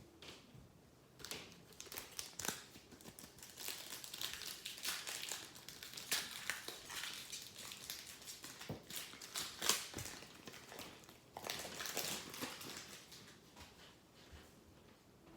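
Crinkling and rustling of trading-card packaging and cards being handled, with many small irregular clicks. It comes in uneven stretches, busiest a few seconds in and again past the middle.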